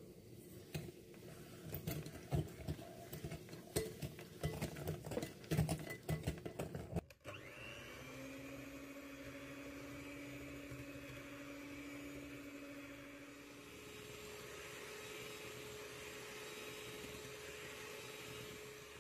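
Electric hand mixer beating egg yolks and sugar in a glass bowl. For the first several seconds there is an irregular clatter of knocks and scrapes as the beaters churn through the sugar. After a sudden break comes a steady motor whir, whose tone shifts about two-thirds of the way through.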